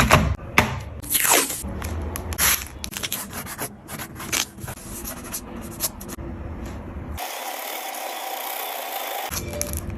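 Oil pastel scraping and rubbing across paper in quick, separate strokes. About seven seconds in, this gives way to a steady, even rubbing hiss for about two seconds, then the strokes resume near the end.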